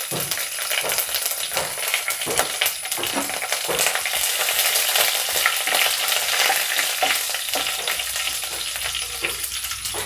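Mustard seeds popping and crackling in hot coconut oil, frying with curry leaves and dried red chillies, with a spatula stirring them around the pan.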